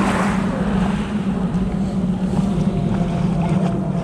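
A steady low drone with wind on the microphone, and a short rush of noise right at the start.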